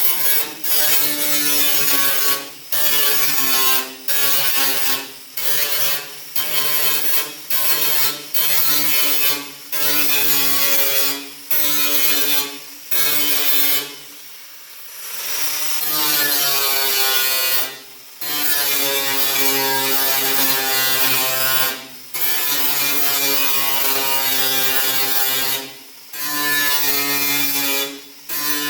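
Electric grinder grinding down fresh welds on a sheet-metal car fender, in short passes: the motor's pitch sags as it bites into the metal and recovers each time it is eased off, every second or two. About halfway through it drops away and then winds back up.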